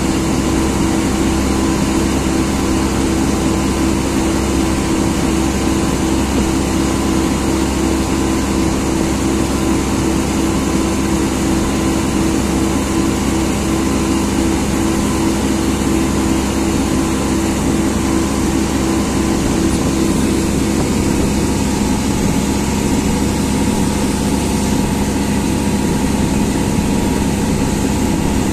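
Engine of a passenger engine boat running steadily while under way, a constant drone with an even hiss of water and wind over it.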